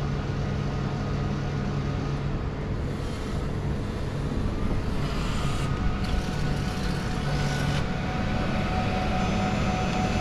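Vending machine running its built-in heater to warm a packaged meal: a steady mechanical hum.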